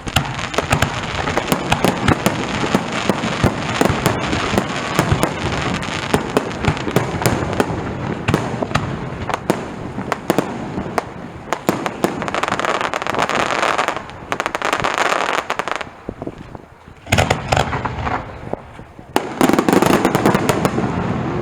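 Aerial fireworks display: a dense barrage of sharp bangs over continuous crackling. It thins out briefly twice in the later part before another heavy burst of shells near the end.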